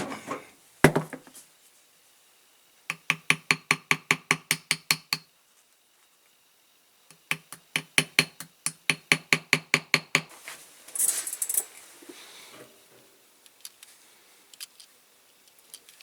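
Small hammer tapping a toy car's wheel down onto its metal axle in two quick runs of light, ringing taps, about five a second, to seat a wheel that was jamming in the hub. A brief hiss follows near the end.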